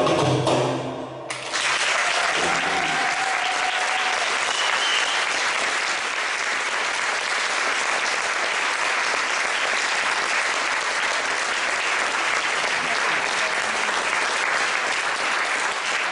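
Drum-solo dance music ends about a second in, and then an audience applauds steadily.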